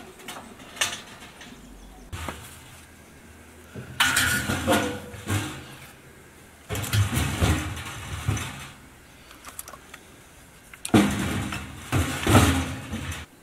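Split firewood being loaded by hand into a sheet-metal wood stove: logs knocking against each other and against the metal firebox in three bouts of clatter, the last near the end.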